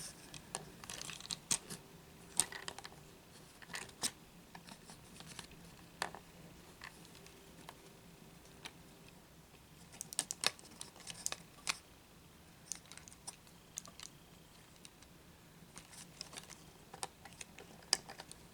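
Faint, irregular clicks and light clatter of a plastic Transformers action figure's parts being turned, bent at hinges and snapped into place during transformation.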